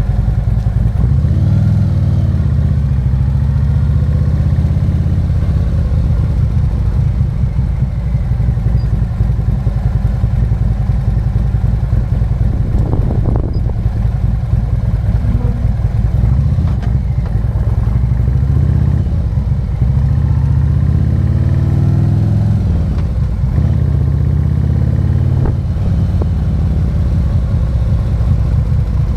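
Harley-Davidson Road King's 117 cubic-inch V-twin engine running on the road, its pitch rising and falling several times as the bike accelerates and eases off.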